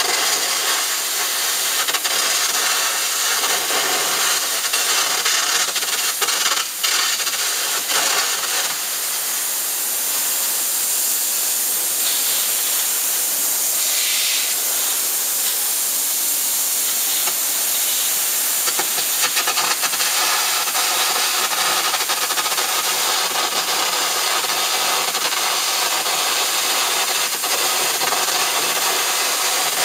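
Arc gouging on metal: a steady, loud hiss with crackle from the arc and its air jet as it cuts a groove.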